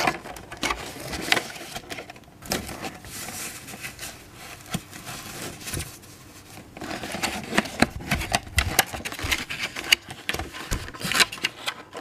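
Thin clear plastic blister packaging crackling and clicking irregularly as hands work a power bank out of its tray; the clicks come thicker in the second half.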